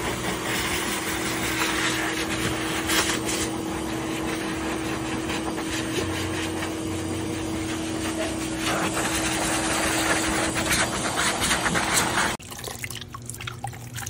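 Pet blower dryer running steadily, a continuous rush of air over a constant motor hum. About twelve seconds in it cuts off suddenly, leaving quieter water trickling and splashing as a puppy is rinsed.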